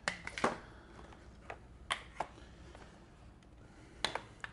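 A scattering of short, light clicks and knocks as jumper-cable clamps, wires and the plastic case of a portable jump-starter power pack are handled: a few at the start, a couple around two seconds in, and a few more near the end.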